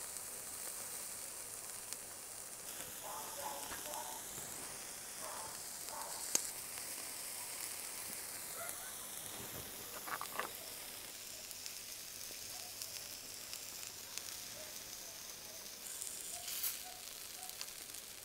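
Skewered meat sizzling over a charcoal grill, a steady hiss, with a few sharp clicks as the wooden skewers are moved and set down on the metal grate.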